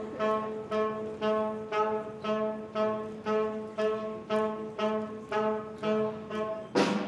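Instrumental music: a single pitched note is played in an even pulse, about two times a second. Just before the end a quick rising swoop leads into a busier passage.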